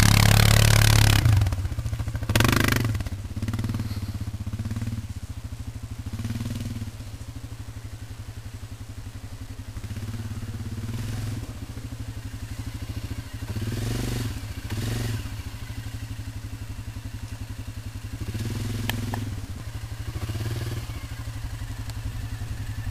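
Quad bike (ATV) engine climbing a steep sand bank, revving up and down in repeated surges as the wheels spin in the sand. Loud at first, it drops off about a second in as the quad moves up the slope.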